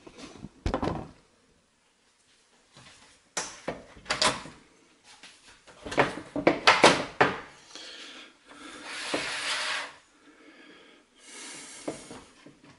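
Plastic parts of a motorhome roof-hatch blind cassette being handled and fitted: a series of sharp clicks and knocks, loudest in a quick cluster past the middle, followed by a longer scraping rub.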